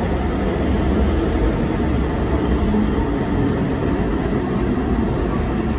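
Alstom Citadis Spirit light rail train of Ottawa's O-Train Confederation Line rolling into an underground station, a steady low rumble of wheels and running gear as its cars pass along the platform.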